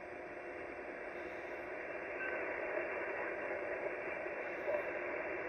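Icom HF transceiver's speaker hissing with band noise while being tuned down through the 40-metre band. There are a few faint, brief whistles as signals slide past, and the hiss grows slowly louder.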